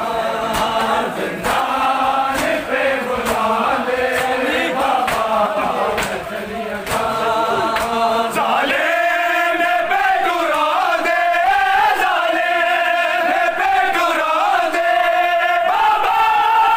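A group of men chanting a noha, a Shia mourning lament, behind a lead reciter, with rhythmic slaps of matam chest-beating in time. The lead voice becomes louder about eight seconds in.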